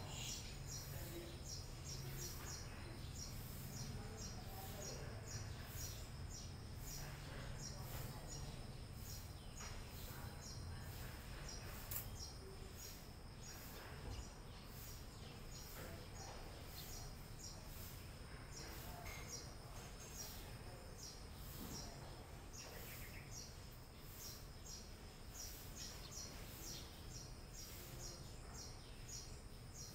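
Faint outdoor ambience of small birds chirping, many quick high-pitched chirps repeating throughout, over a low steady hum that fades after the first half.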